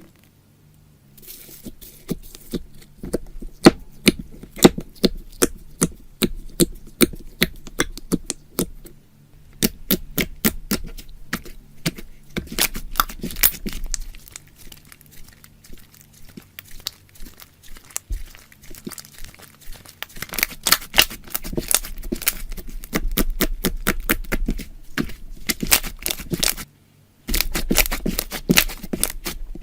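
Slime being squeezed, poked and stretched by hand, giving dense runs of sharp crackles and pops with short pauses between handlings.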